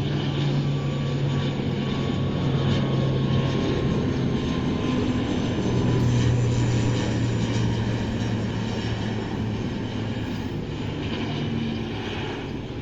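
CASA C-295W twin turboprop at takeoff power: a loud, steady propeller drone with a faint high whine that slowly falls in pitch. It is loudest about halfway through and eases off slightly near the end.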